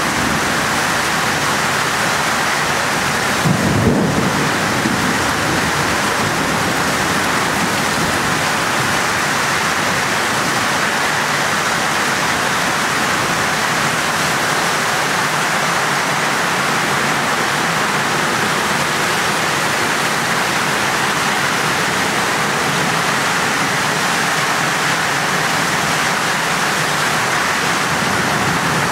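Heavy rain pouring steadily in a downpour, with a brief low thump about four seconds in.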